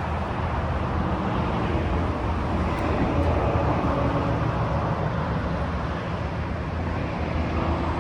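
Heavy interstate highway traffic, a steady, loud wash of passing vehicles.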